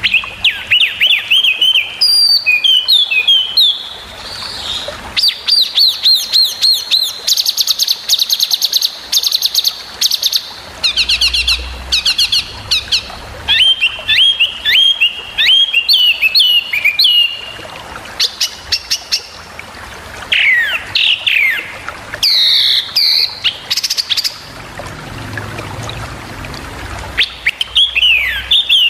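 Small songbird singing a loud, varied string of sharp, rapid phrases: quick falling whistled notes, fast high trills and chattering runs, in bursts with brief pauses between them.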